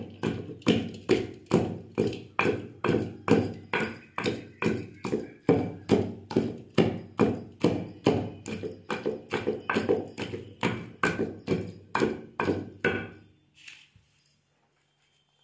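Pestle pounding peanut chutney in a heavy stone mortar: a steady beat of dull thuds, about two to three a second, that stops a little before the end.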